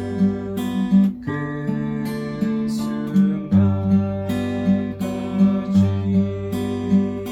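Acoustic guitar fingerpicked in a 3/4 waltz arpeggio. Each bar has six even half-beat plucks: a thumb bass note, then the index finger, then the middle and ring fingers together, then the index again, the middle and ring together again, and the index once more. The chord changes about every two seconds.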